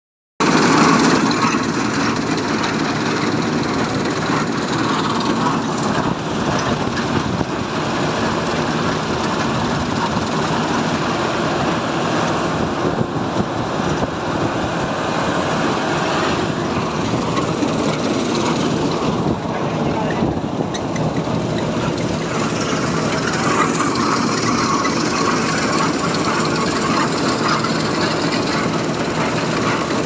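New Holland combine harvester running steadily while cutting wheat, its engine and threshing machinery making a continuous, even drone heard from the cab.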